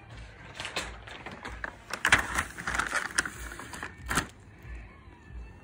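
Plastic bag of cat treats crinkling as it is handled: a run of sharp crackles, loudest about two seconds in, with a last one a little after four seconds.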